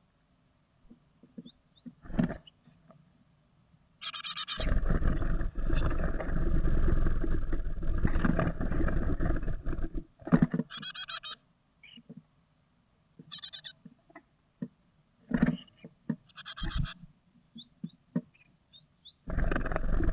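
Great tit nestlings in a wooden nest box giving short bursts of high chirping calls. From about four to ten seconds in, and again near the end, loud rustling and whirring drowns them as the nearly fledged chicks flap their wings and scramble inside the box.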